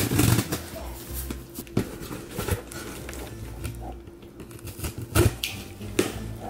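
Cardboard shipping box being handled and its packing tape cut open with a small box cutter: scattered scrapes and knocks, with a sharper knock about five seconds in.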